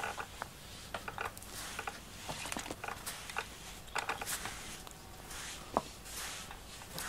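Rubber glove-type grooming brush stroked through a cat's fur: irregular soft rubbing, swishing strokes with a few small ticks.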